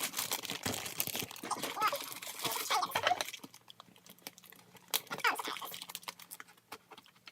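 Packaging crinkling and rustling as a parcel is unpacked by hand. It is busiest in the first three seconds, then quieter, with a short burst of handling about five seconds in.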